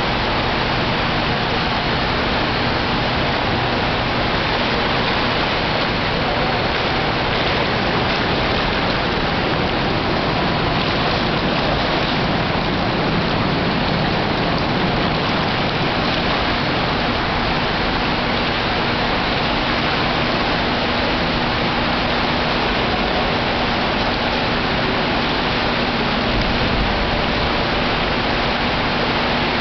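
Indoor swimming pool ambience: a steady, even rushing noise like running water, with a faint steady hum underneath.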